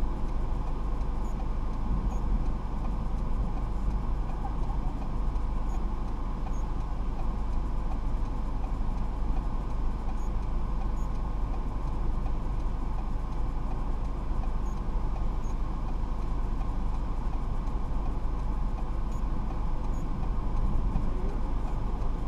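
Steady low rumble and road noise of a moving vehicle, heard from inside the car.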